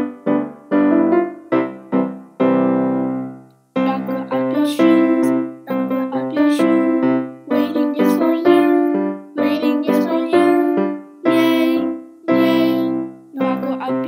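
A children's song played on piano: short, separate notes and chords in a bouncy rhythm. It breaks off for a moment about four seconds in, then carries on fuller.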